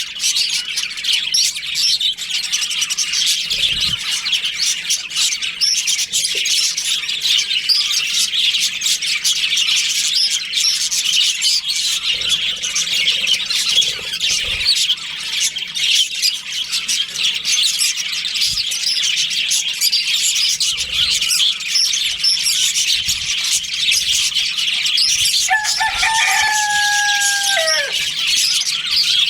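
A budgie colony chirping and chattering without a break, many birds at once. Near the end a single longer call cuts through, held on one pitch for about two seconds and then falling away.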